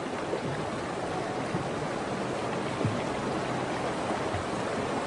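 Fast-flowing river water rushing steadily, with a few soft low thumps about halfway through and near the end.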